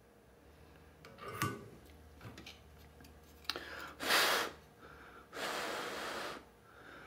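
A few light handling clicks, then three long puffs of breath, each about a second long.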